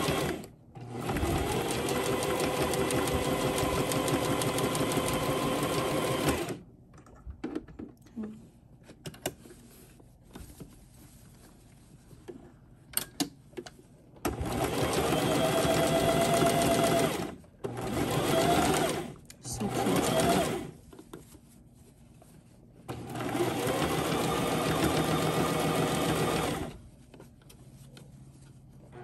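Electric sewing machine sewing a top stitch in a stop-start way. It runs for about six seconds, then pauses with a few light clicks of fabric handling, then runs in four shorter spells with stops between them as the circular band is turned under the foot.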